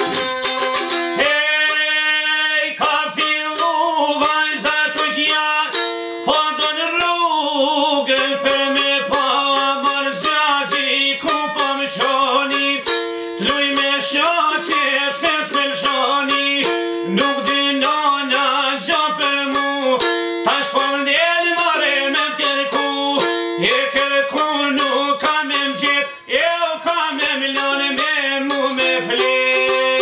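Albanian çifteli, a two-string long-necked lute, picked in quick runs while a man sings a folk song over it, beginning with a long held note about a second in.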